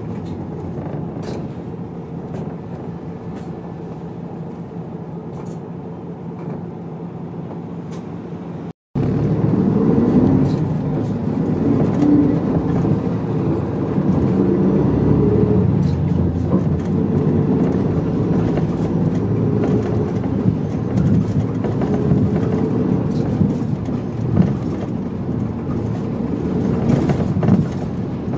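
Diesel engine and road noise of a medium-size route bus, heard from inside the cabin while it drives. The sound cuts out briefly about a third of the way in, then comes back louder, with the engine note rising as the bus accelerates.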